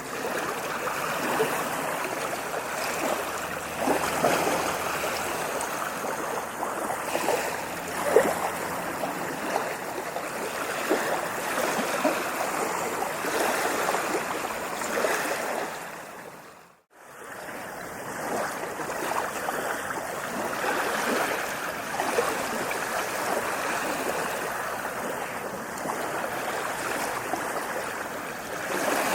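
Ocean waves washing onto a beach: a steady rush of surf with small splashes and surges. About two-thirds of the way through, the sound fades out briefly and comes straight back.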